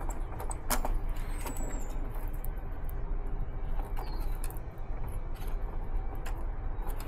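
Push-on spade connectors being worked off an AC contactor's terminals by gloved hands: scattered sharp clicks and wire rustling, the loudest click about a second in, over a steady low background rumble.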